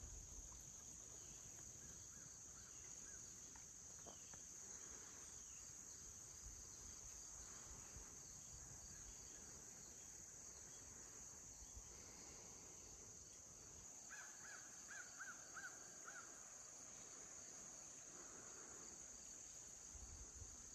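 Faint woodland ambience: a steady, high insect chorus, with a bird calling in a quick run of about six short notes some 14 seconds in and again near the end.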